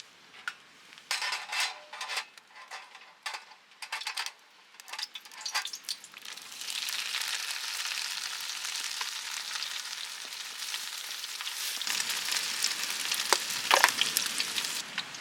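Food frying in a hot pan: a steady sizzle that sets in about six seconds in, after a few seconds of scattered clicks and rustling, with some sharper crackles near the end.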